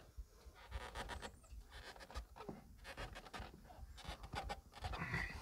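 Faint irregular scraping, rustling and small clicks of hands working on the fuel hoses and fittings of an excavator's diesel engine.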